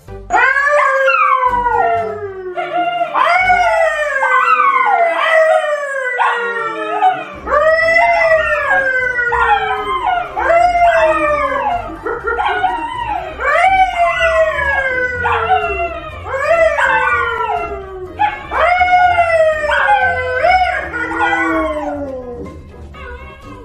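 Two dogs, a yellow Labrador and a brown poodle, howling along with a man who howls at them. Long overlapping howls rise and then slide down in pitch, one after another, and die away near the end.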